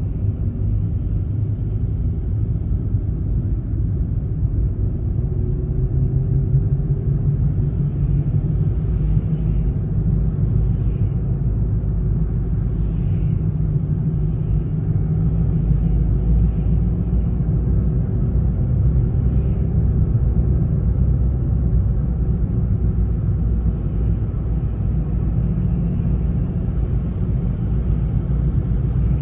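A car driving on a city road, heard from inside the cabin: a steady low rumble of engine and tyre noise.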